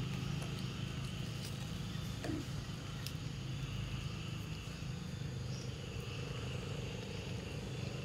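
Steady low motor hum, with a faint high insect buzz and a few faint clicks over it.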